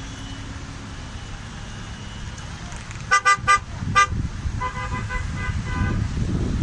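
Car horn sounding three quick toots and then one more, over a steady rumble of engine and road noise. A fainter horn beeps several times just after.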